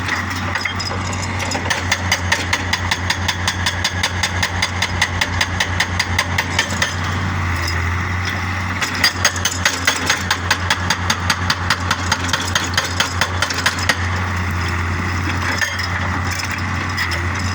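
Excavator engine running steadily while its hydraulic breaker hammers stone in rapid, even blows, about five a second. The blows come in two runs of several seconds with a short pause between them.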